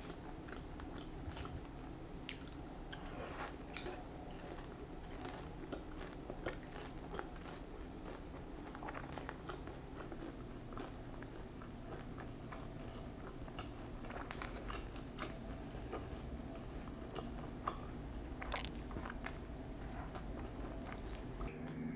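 Close-miked chewing of sauced boneless fried chicken: steady wet chewing with scattered small crunches and mouth clicks at irregular moments.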